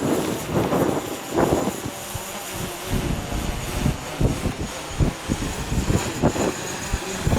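DJI Mavic Pro quadcopter's propellers whining in a steady high tone as it descends, with strong wind gusting and buffeting the microphone in irregular low rumbles.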